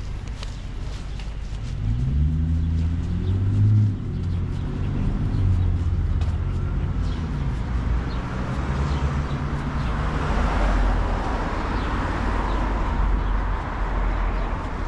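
Street traffic: a motor vehicle's engine rumbles and rises in pitch as it pulls away about two seconds in, then the hiss of passing tyres builds in the second half.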